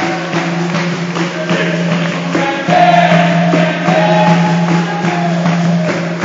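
Capoeira roda music: a group singing together over handclaps and percussion, with a steady low tone held underneath.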